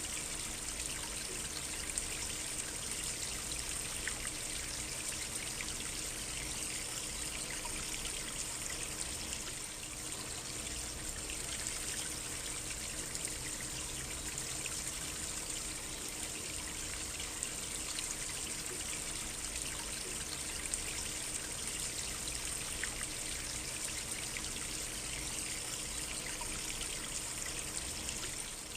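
A small stream trickling steadily, running water with many small splashes.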